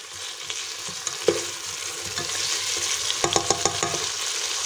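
Pork ribs, peppers and tomato sizzling steadily in hot oil at 180 °C in a Cecotec Olla GM multicooker pot, while a spoon stirs and scrapes through them. A quick run of clicks from the spoon against the pot comes about three seconds in.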